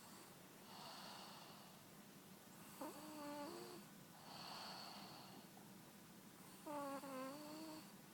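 A person snoring slowly and quietly: two pitched snores about four seconds apart, alternating with breathy hissing breaths that carry a faint high whistle.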